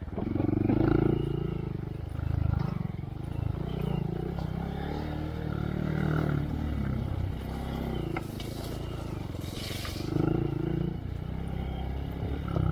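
Honda Monkey's small single-cylinder engine running through a Yoshimura RS3 exhaust, rising and falling in several throttle swells. A brief hiss comes a little past the middle.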